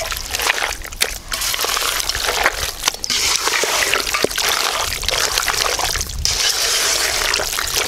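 A hand squishing and kneading raw chicken pieces in a thick yogurt, lemon-juice and chili-powder marinade in a metal pot: continuous wet squelching and sloshing, full of small slaps and squishes.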